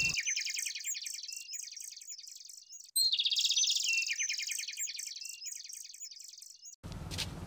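Birdsong sound effect: a rapid chirping trill with higher twittering above it, played twice and fading away each time. Outdoor background noise comes in near the end.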